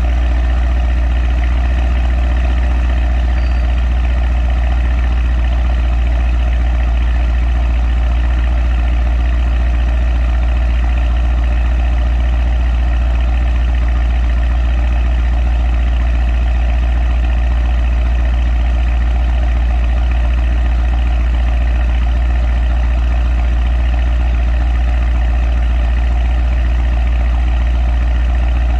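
Mercedes E63 S AMG's twin-turbo 4.0 V8 (M177) idling steadily at a constant low pitch, with its rear exhaust flaps fully open and upgraded downpipes.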